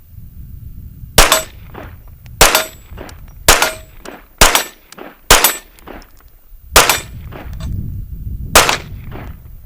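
Kriss Vector SDP 9mm pistol fired seven times in slow, aimed semi-automatic shots, roughly one a second with a longer pause before the last two, each shot followed by a short echo.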